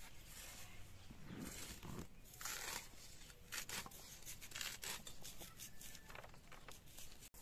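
Leafy greens being sliced on a boti, an upright curved kitchen blade, in a series of crisp cutting strokes, irregularly about one a second.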